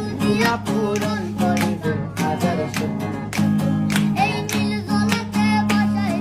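Background music with guitar and a steady beat: an instrumental passage of a Bengali song.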